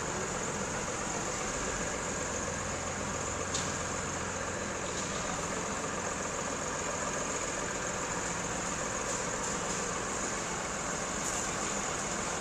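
A heavy vehicle's engine running steadily, with a high steady whine over it and a couple of light clicks.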